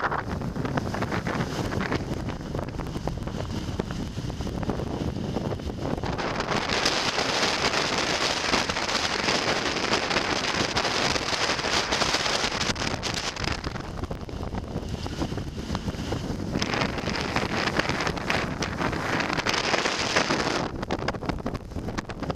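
Force 7–8 gale wind buffeting the microphone on the deck of a sailboat hove-to, with breaking seas rushing past the hull. The wind gusts harder about six seconds in and again after about sixteen seconds, each gust lasting several seconds.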